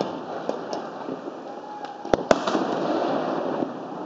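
Fireworks going off: a few faint pops, then two loud sharp bangs in quick succession just past two seconds in, over steady background noise.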